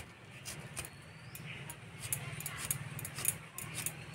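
Young green jackfruit being sliced on a boti's fixed upright blade: a quick run of crisp cutting clicks, several a second, over a faint low hum.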